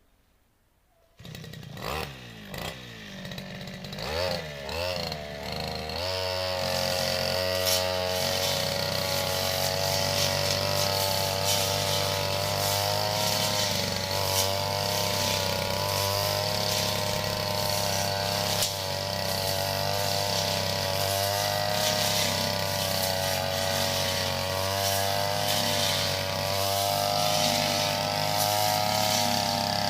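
Grass-cutting brush cutter engine starting about a second in and revving unevenly up and down, then held at high revs as it cuts grass with its long blade.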